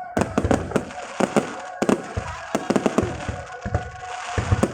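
Fireworks display: a rapid, irregular series of sharp bangs and crackles over a continuous hiss.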